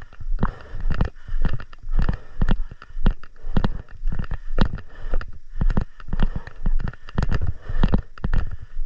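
Footsteps at a steady walking pace, about two a second, each a short thud with a little rattle.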